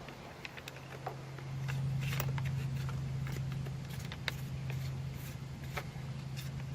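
Scattered light clicks and taps of the chainsaw's bar side cover and tensioning knob being handled and tightened back up, over a steady low hum that grows louder about a second and a half in.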